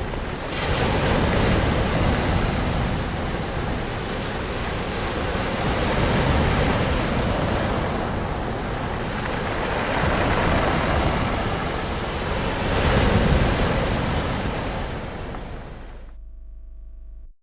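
Ocean waves washing in, a steady surf noise that swells about every three to four seconds. It fades away near the end.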